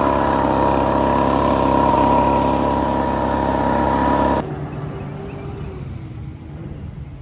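Small gasoline engine of lawn equipment running steadily, cutting off suddenly about four seconds in. After that only quieter outdoor background noise remains.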